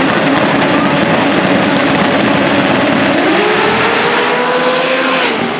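Two drag-race cars running loud at the start line, then launching down the strip; engine pitch climbs steadily from about three seconds in as they accelerate, and falls sharply near the end.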